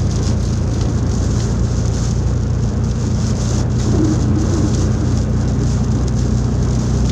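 Heavy rain falling on a car's roof and windows, heard inside the cabin, over a steady low hum from the running car.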